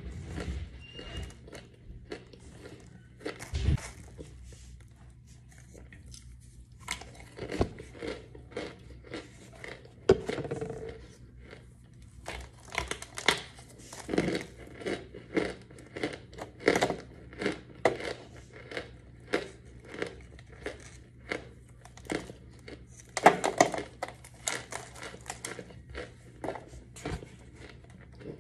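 Dry, crisp crunching of a chalky white block being bitten and snapped apart by hand, in short irregular cracks that come sparsely at first and then about one or two a second through the second half.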